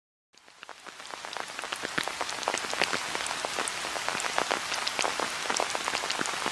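Steady rain falling, with many separate sharp drop strikes close by. It fades in from silence over the first second or two.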